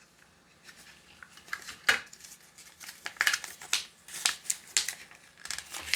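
Doorbell packaging and its paper instructions being handled: a run of rustling and scraping strokes with a sharp click about two seconds in.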